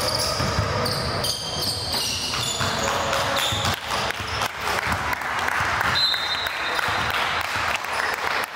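A basketball bouncing on a gym floor in repeated, irregular thuds, with people talking in the background.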